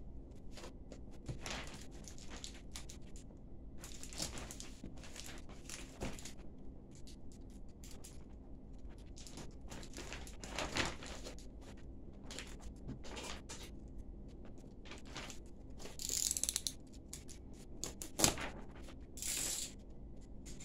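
Plastic carrier bag rustling and crinkling as it is handled and pulled back over a cardboard box, in many short bursts. Near the end come two louder crinkles with a single sharp knock between them.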